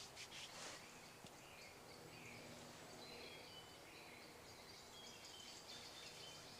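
Faint woodland birdsong: a few short, high whistled phrases over a near-silent background, with a brief soft rustle in the first second.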